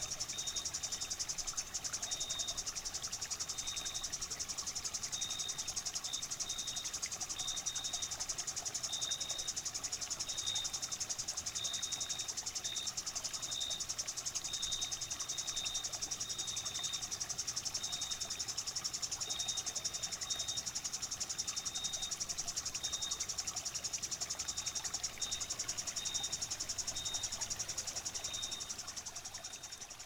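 A steady chorus of stridulating insects: a dense, rapid high trill, with short chirps from another insect repeating irregularly at a slightly lower pitch.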